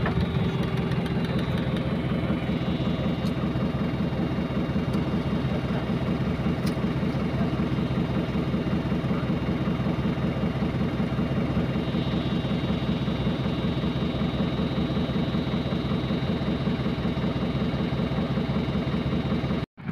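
JCB 3CX backhoe loader's diesel engine running steadily, an even low engine note with a thin high whine above it. The sound cuts out for an instant near the end.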